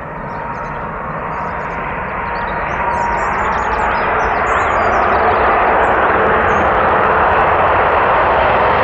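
An Airbus A330's Rolls-Royce Trent 700 jet engines at landing power as the airliner comes in to land, a rushing roar with a steady whine that grows louder as it nears.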